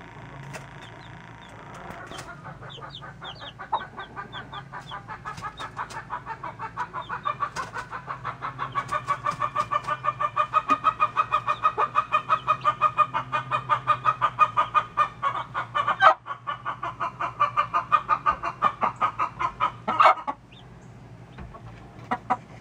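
A chicken clucking rapidly and steadily, about four to five clucks a second. The clucks build louder over the first several seconds and stop suddenly near the end. A few high chick peeps come early on.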